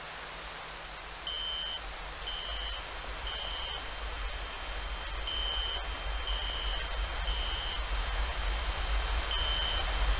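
Smoke or fire alarm sounding in the three-beep evacuation pattern: three high beeps about a second apart, then a longer pause, repeating. Under it runs a steady hiss that slowly grows louder, with a low hum.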